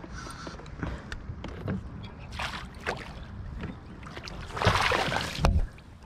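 Water splashing as a hooked flathead thrashes at the surface and a landing net is swept at it in a fumbled netting attempt. There is a short splash about two and a half seconds in and a louder one lasting about a second near the end, with light knocks between them.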